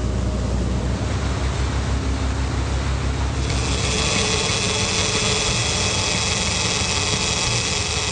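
Boat engine running steadily under a wash of rushing noise. About three and a half seconds in, a brighter, louder hiss comes in.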